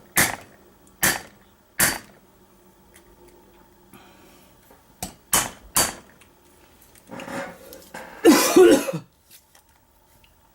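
Old Kwikset doorknob being banged against an anvil to knock the stuck lock cylinder loose: sharp metal knocks, three in the first two seconds and three more about five seconds in. Near the end a person coughs loudly.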